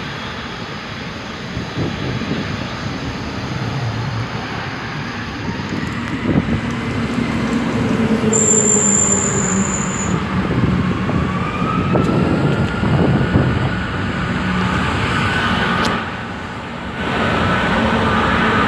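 Road traffic passing close by, with the whine of jet airliner engines spooling up for takeoff rising about eleven seconds in and then holding steady.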